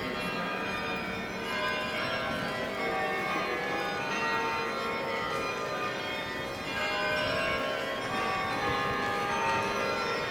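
Church bells of St Peter's Church, Leuven, ringing together: many overlapping bell tones that sound continuously without a break.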